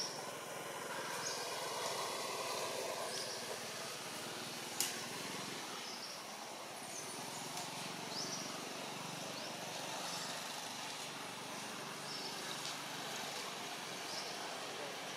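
Outdoor background ambience: a steady wash of noise with short, high, rising chirps about once a second and a single sharp click about five seconds in.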